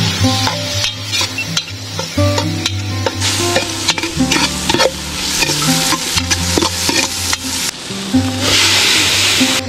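Garlic, onion and tomato sizzling in hot oil in a large metal pot as a metal ladle stirs and scrapes them, with clicks of the ladle against the pot; the sizzle grows louder near the end. Background music with a bass line plays throughout.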